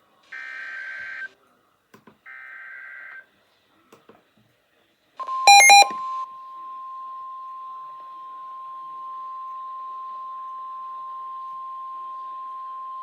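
Emergency Alert System data header: two warbling two-pitch digital squawks, each about a second long and a second apart. About five seconds in comes a brief, very loud blast of clashing tones. Then a steady single-pitch alarm tone, the 1050 Hz NOAA Weather Radio warning alarm, starts and holds, signalling a warning-level alert.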